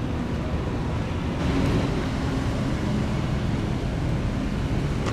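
Steady low rumble of vehicles running, with wind on the microphone.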